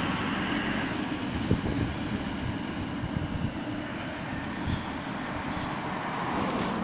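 Freight train rolling away down the track: a steady rumble of wheels on rail, with a sharp knock about a second and a half in, slowly fading.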